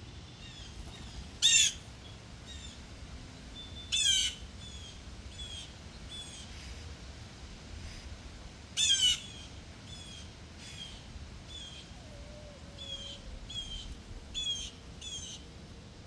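Blue jays calling: three loud short calls, about a second and a half, four and nine seconds in, with many softer short chirps between them.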